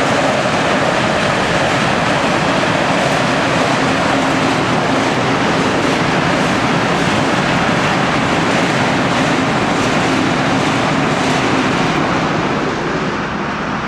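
Rushing river water: a loud, steady rush with no breaks.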